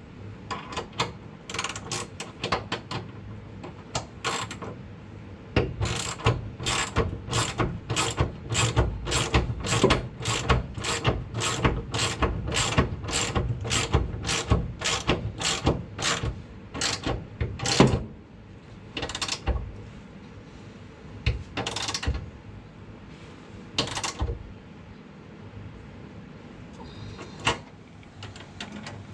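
Hand ratchet wrench clicking as it tightens the clamp bolts of bolt-on subframe connectors, about two strokes a second for some twelve seconds, then a few scattered clicks.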